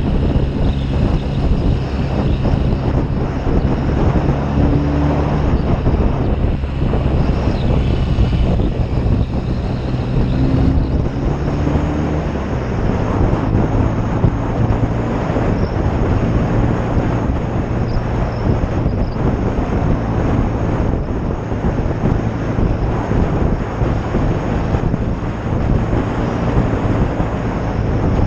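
1972 BSA Lightning's 650 cc parallel-twin engine running steadily under way, with wind buffeting the microphone. The engine note drops to a lower pitch about twelve seconds in.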